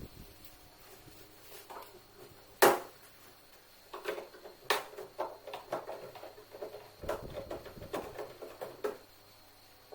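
Knocks and clatter from hand tools and washing-machine parts being handled during disassembly: one sharp knock about three seconds in, then a run of quicker, irregular taps and clicks until near the end.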